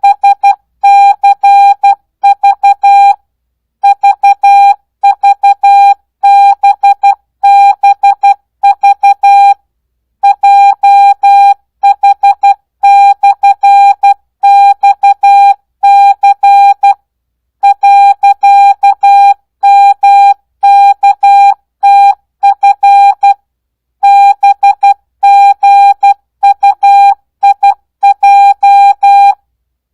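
Morse code practice sent as a single steady beep keyed on and off in dits and dahs at 12 words per minute, without Farnsworth spacing: short pauses between letters and longer gaps of about half a second between words.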